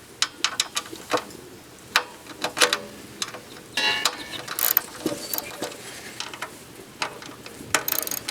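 Socket ratchet wrench clicking in short runs, with scattered metallic clicks and clinks, as the 3/8 screws holding the log splitter's belt cover are backed out.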